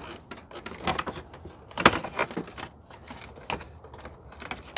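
Plastic engine cover on a 5.7 Hemi V8 being pulled off by hand: a series of sharp plastic clicks and knocks as it pops free of its mounts, the loudest about two seconds in.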